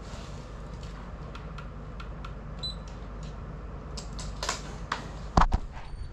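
Handling noise: scattered clicks and taps of plastic gear being moved, growing louder and busier from about four seconds in, with loud knocks near the end as the camera is grabbed and picked up. A short electronic beep sounds a little over two seconds in.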